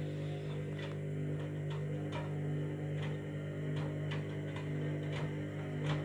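Candy front-loading washing machine's motor humming steadily as the drum turns slowly with wet bedding, with light knocks and clicks about once or twice a second. The machine is struggling to get up to spin speed with the heavy load.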